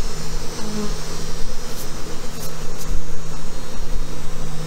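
Honey bees buzzing in a steady hum, many of them in flight around an opened hive after being stirred up from a frame of comb.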